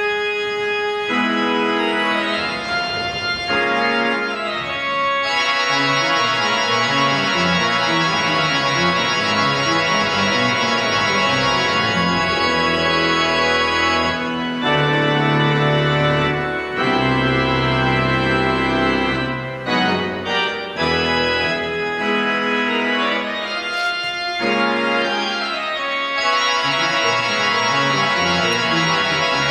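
Church organ playing full, sustained chords as a recessional, starting suddenly and loudly, with deep pedal bass notes in the middle.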